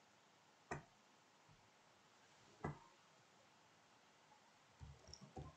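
Near silence broken by two single computer mouse clicks about two seconds apart, then faint computer-keyboard typing that starts near the end.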